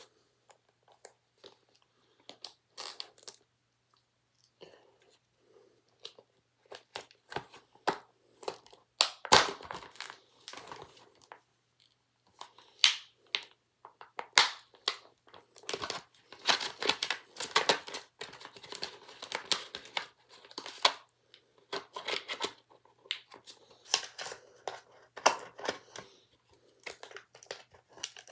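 Plastic packaging on a DVD case being torn and crinkled by hand: irregular crackling and snapping, sparse at first and busier from about a third of the way in.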